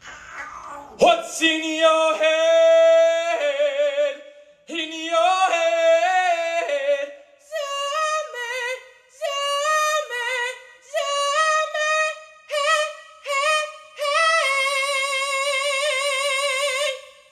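A high voice singing a wordless melody with strong vibrato: a string of notes with short breaks between them, then one long held note near the end.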